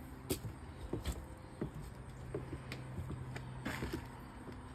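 Footsteps on wooden porch steps and decking: scattered light knocks over a steady low hum.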